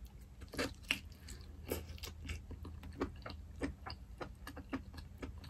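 Close-up chewing and biting of lobster meat in butter sauce: a run of irregular short clicks from the mouth and food.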